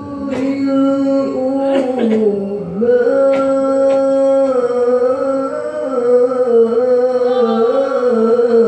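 A man reciting the Qur'an in melodic tilawah style, drawing one long ornamented note out in slow turns and pitch slides without pausing for words.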